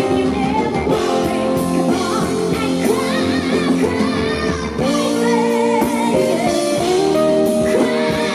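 Live rock band playing: a woman sings the lead vocal with vibrato over electric guitar, bass and drums with cymbals.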